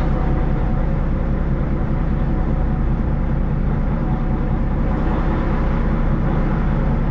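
Fishing boat's engine running steadily, a constant low drone with no change in speed.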